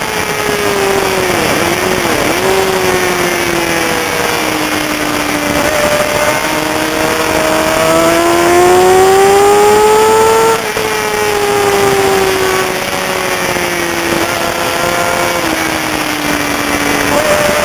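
Racing sport-bike engine working through a lap: revs fall with quick throttle-blip dips on downshifts, climb steadily for several seconds under hard acceleration, drop sharply about ten seconds in as the throttle closes, wind down again, then pick up near the end.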